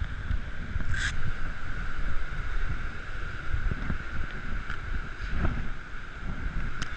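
Steady rush of floodwater, with wind buffeting the microphone and a short click about a second in.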